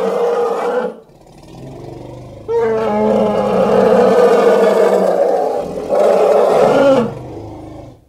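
Elephant roar sound effect: one roar ends about a second in, a low rumble follows, then a second long, loud roar starts about two and a half seconds in. Near the end the roar drops in pitch and trails off quietly.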